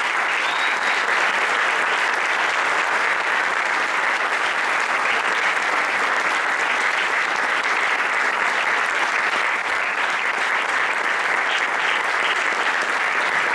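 Audience applauding, a dense, even clapping that holds steady.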